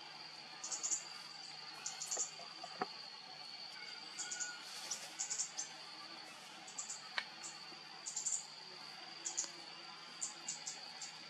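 Outdoor ambience: a steady, high-pitched insect drone, with short, very high chirps coming in quick clusters every second or so.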